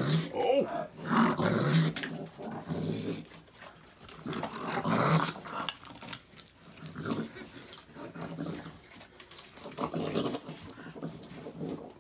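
Raccoons growling in repeated low, wavering bursts while feeding on peanuts.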